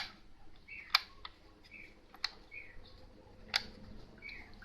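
Power strip switches being clicked one after another: four sharp clicks, each about a second apart.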